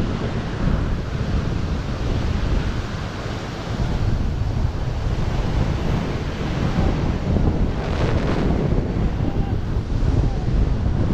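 Airflow rushing over a helmet camera's microphone in wingsuit flight: loud, steady wind buffeting, with a brief sharper hiss about eight seconds in.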